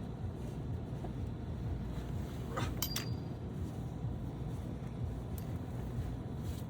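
Steady low outdoor background rumble, with a short faint rising sound and a couple of sharp clicks about three seconds in.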